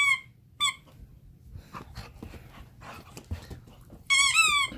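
A dog's squeaky toy squeaking as a pit bull chomps on it: one short high squeak about half a second in, then a quick wavering run of squeaks at about four seconds.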